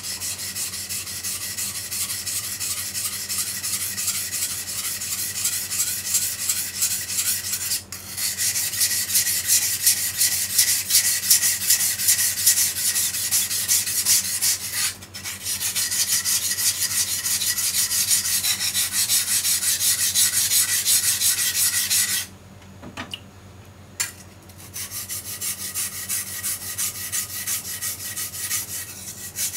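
Kitchen knife being sharpened on a whetstone: fast, steady back-and-forth strokes of the steel blade grinding on the wet stone. They break off briefly about a quarter and about half of the way through, and pause for about two seconds about three-quarters of the way through.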